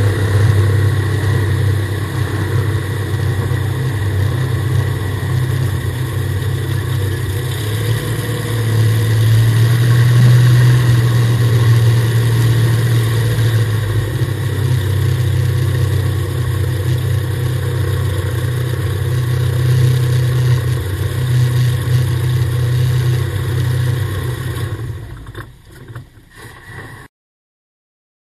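Unlimited-class race jet boat's engine running with a steady low drone, picked up by a camera mounted on the boat's deck. It swells a little partway through, then fades away near the end and cuts to silence.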